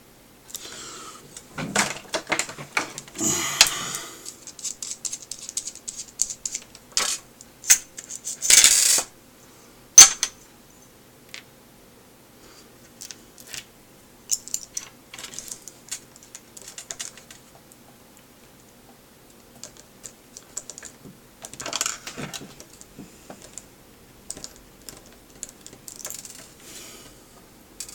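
Small hard plastic parts and tools clicking, tapping and scraping while an electronics headset is taken apart by hand. The clicks come in irregular clusters, with a short scrape just before a sharp click about ten seconds in.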